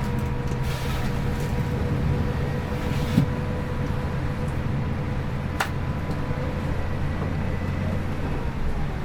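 Scania K410 IB multi-axle coach under way, heard from inside the cabin: a steady engine and road drone with a faint steady whine over it. A short knock about three seconds in and a sharp click a little before six seconds.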